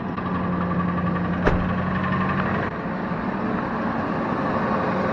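Ford 5.4 L Triton V8 idling just after a cold start, with a bit of a rattle and clatter that doesn't sound overly healthy. A single sharp knock comes about a second and a half in.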